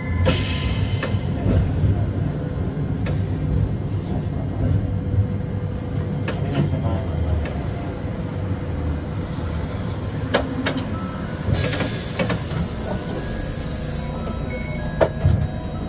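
Hakodate City tram running, heard from inside the car: a steady low rumble with scattered sharp clicks.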